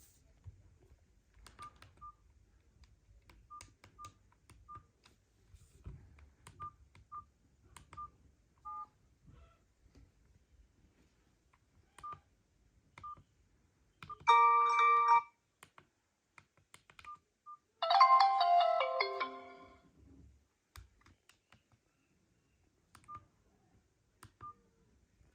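Mobile phone tones: faint short beeps and clicks scattered throughout, then about 14 seconds in a loud steady tone lasting about a second. About 18 seconds in comes a quick run of notes falling in pitch that lasts about two seconds.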